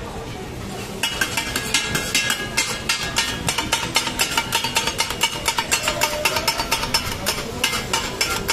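Metal spatulas clanking and scraping against a large flat frying pan as food is stirred and tossed. The clanking starts about a second in and repeats rapidly, several ringing strikes a second.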